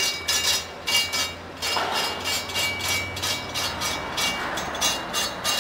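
FDY-6L line straightening machine running, with a steady motor hum under irregular metallic clattering as a metal rod spins through its straightening rollers and knocks about in the guide trough. The rod is running rough rather than smoothly, a sign that it is bent or slightly undersized for the roller setting.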